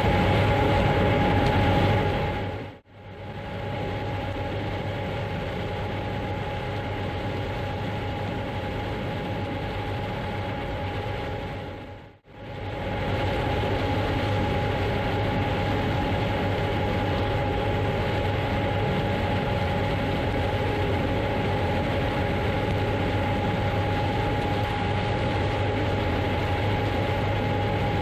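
John Deere X9 1000 combine harvester running steadily at work: a constant engine and machinery drone with a steady whine over it. The sound dips away and comes back twice, about three and about twelve seconds in.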